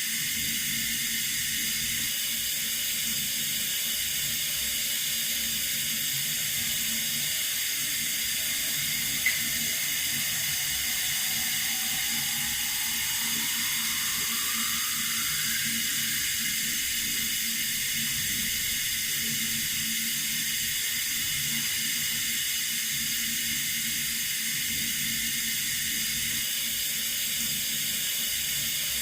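Water running steadily from a tap as an even hiss, with a single brief click about nine seconds in.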